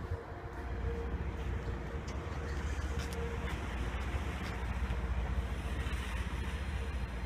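Commuter train rolling by: a steady low rumble with a faint steady hum over it.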